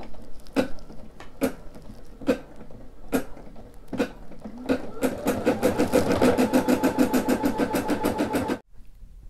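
Brother SE600 embroidery machine starting a new colour section: a few slow, separate needle strokes, then fast, even stitching at about ten stitches a second that cuts off abruptly near the end.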